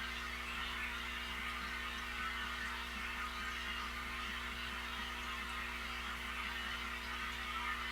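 Steady electrical hum of a running aquarium pump, even and unchanging throughout, with a soft hiss above it.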